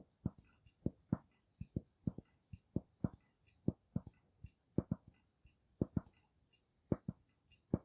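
Zippo lighter fuel dripping from the can's nozzle into a plastic filler cup: a string of short, separate drip sounds, irregular, about two or three a second.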